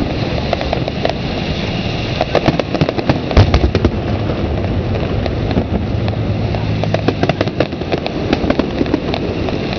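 Aerial fireworks display: a dense, irregular run of bangs and crackles, the loudest burst about three and a half seconds in.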